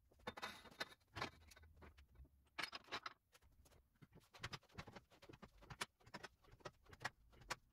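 Faint, irregular clicks and taps from a tube bender working a steel roll-cage tube through a bend.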